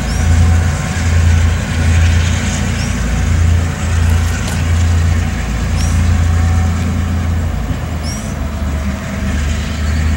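Diesel locomotive engine running with a steady low rumble that swells and dips, with faint short high chirps every couple of seconds.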